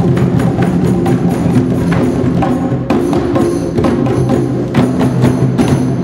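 Ensemble of African hand drums (djembes, a frame drum and a conga-style drum) with sticks beating a drum, playing a fast, dense rhythm together; the drumming stops at the very end.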